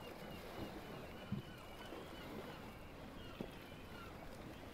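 Faint background ambience: a low steady hiss with scattered faint short chirps and a couple of soft knocks.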